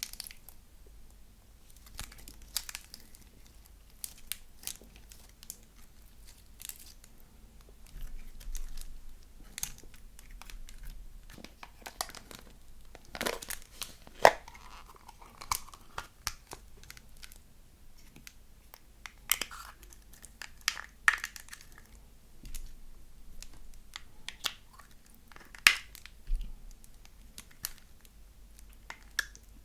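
Slime being squished, stretched and folded by hand, giving irregular sticky pops and crackles.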